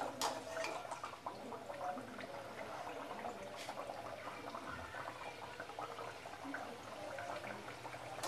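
Kachoris deep-frying in hot oil in a steel kadhai: a steady bubbling sizzle of the oil around the dough, with a few light clicks.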